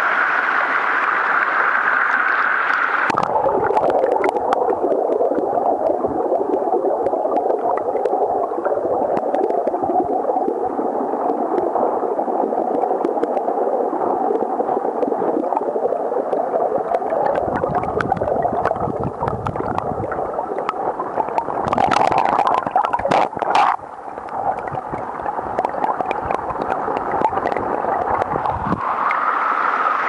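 Small waterfall's falling and splashing water, at first an even open-air hiss. About three seconds in it is heard from below the surface: a muffled, lower gurgling rush with many sharp clicks and a louder flurry a little after the middle. Near the end it goes back to the open-air hiss.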